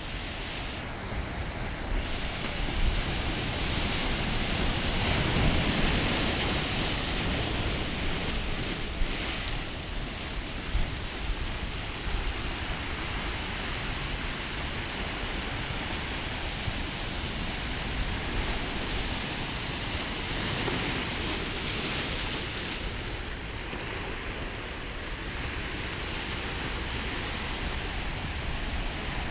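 Sea surf breaking and washing over sand and rocks against a concrete sea wall, a steady rush of foaming water that swells and eases as each wave comes in.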